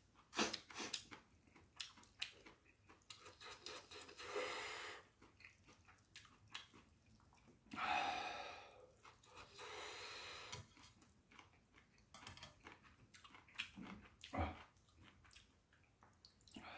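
Eating sounds: metal chopsticks clicking against a metal ramen pot, with three noisy slurps of hot instant noodles and chewing in between. Near the end, soju is poured from a glass bottle into a glass.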